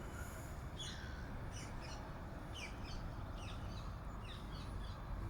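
Small birds chirping: many short, high, falling notes, several a second, over a steady low rumble.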